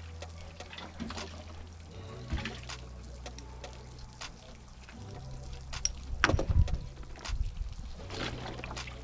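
Water splashing and trickling as bass are lifted dripping out of a boat's livewell and dropped into a fish bag, loudest about six seconds in.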